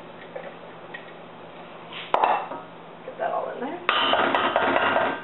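Wooden spoon stirring thick tomato puree in a stainless steel saucepan. A sharp knock against the pot comes about two seconds in, then stretches of scraping and stirring, loudest near the end.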